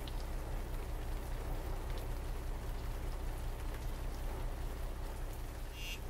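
Steady hiss of rain falling over a constant low rumble, with a few faint ticks and a short high chirp near the end.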